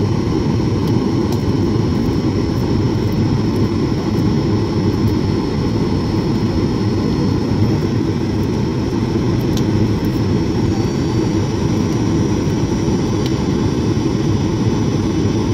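Steady low roar of a jet airliner's engines and rushing airflow, heard from inside the cabin during the descent to land.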